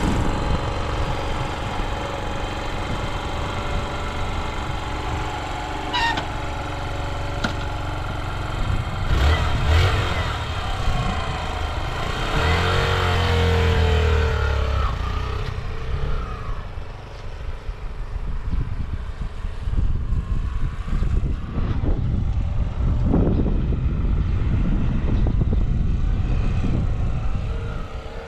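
Yamaha YBR125's 125 cc single-cylinder four-stroke engine running, revving up about nine to fourteen seconds in, then running steadily under a rushing noise. No abnormal noise is heard from the engine.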